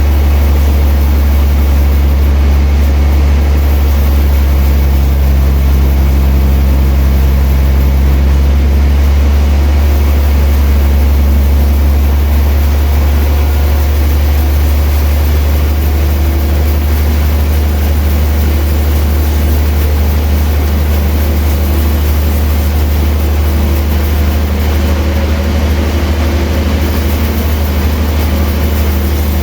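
Sawmill machinery running with a loud, steady low drone that holds even throughout.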